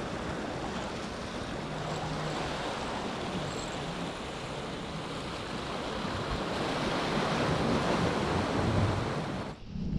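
Ocean surf washing against the boulders of a rock jetty, with wind gusting on the microphone; the sound stops abruptly near the end.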